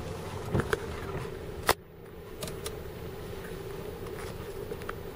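Steady hum inside a parked vehicle's cabin, with a single sharp click about a second and a half in and a few faint ticks.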